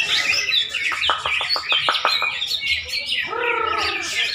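A cucak ijo (green leafbird) singing a loud, continuous run of rapid, varied high chirps and twitters. About a second in comes a quick series of about eight sharp clicking notes.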